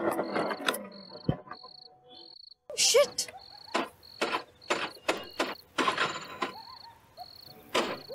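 A scooter engine being cranked over and over without catching, a run of short strokes about two a second: it won't start because the fuel tank has run dry. Crickets chirp steadily underneath.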